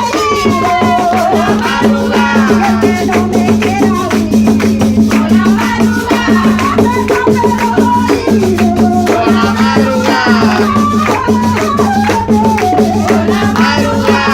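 Music from a tuna ensemble playing a song, with a steady rattling percussion beat under a melody line.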